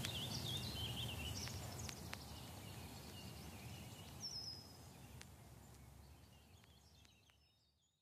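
Faint outdoor ambience with small birds chirping and calling, a few light clicks among them, fading out about six seconds in.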